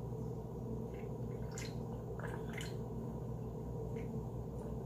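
A person gulping a drink from a can, a handful of soft wet swallowing sounds over a steady low electrical hum.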